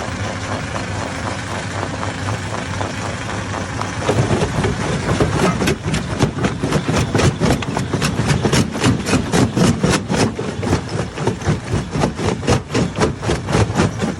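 Hammer stone crusher running with a steady drone, then about four seconds in a fast clatter of rock impacts begins, about four knocks a second, as rock is broken in the machine.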